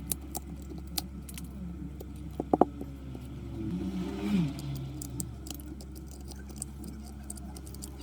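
Scattered light clicks and scrapes of small hand tools working on a phone's glass back, over a steady low hum, with two sharper clicks about two and a half seconds in. A low sound rises and falls around the middle.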